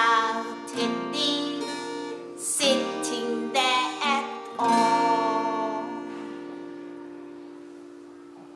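A woman singing a children's counting song to a strummed acoustic guitar. About four and a half seconds in, she strums the song's last chord, which rings on and slowly fades away.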